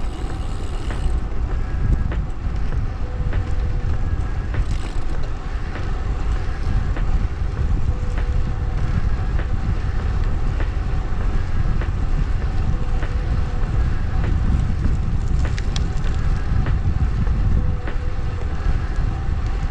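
Wind buffeting the microphone of a road bicycle ride, with a steady rumble of rolling noise and a few short clicks.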